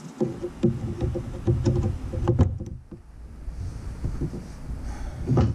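Irregular clicks, knocks and low rumbling handling noise from hands working at a Jeep's plastic under-hood fuse and relay box, busiest in the first couple of seconds, with a short lull and then a louder knock near the end.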